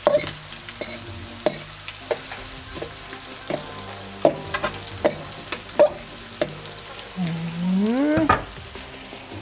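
A metal utensil clinks and scrapes irregularly against a stainless-steel bowl as cooked rice noodles are cut up in it, over a steady sizzle from a frying pan on the hob. Near the end a short low voice-like sound rises in pitch.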